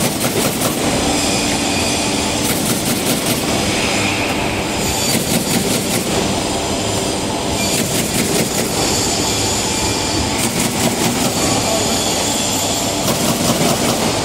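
Automatic corrugated cardboard partition assembly machine running: a steady mechanical rattle with a burst of rapid clicking about every two and a half seconds.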